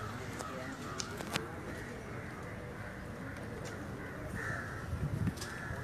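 Murmur of distant voices from a seated outdoor crowd, with birds calling a few times, twice close together near the end.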